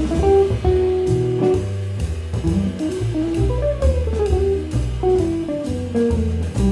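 Small jazz band playing live: a guitar solos in quick runs of single notes rising and falling, over a double bass walking about two notes a second and a drum kit keeping time on cymbals.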